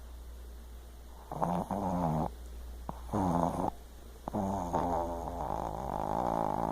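Snoring: three drawn-out, rasping snores with a wavering pitch, the last and longest lasting about two and a half seconds.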